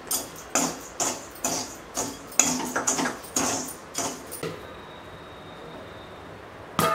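Slotted steel spatula scraping and stirring popcorn kernels through hot salt in a stainless steel kadai, in repeated strokes about two a second, stopping a little past halfway. A single sharp metallic knock near the end.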